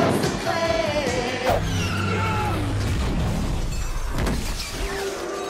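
Soundtrack from film clips: a sung or spoken vocal phrase over music, which cuts after about a second and a half to a steady low electronic bass with sliding effect sounds. A sharp crash comes about four seconds in.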